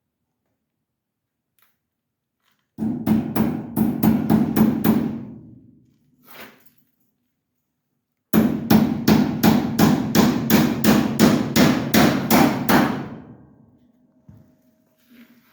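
Hammer blows in two runs of quick, evenly spaced strikes, about three a second: about eight starting near three seconds in, then about fifteen more starting about eight seconds in.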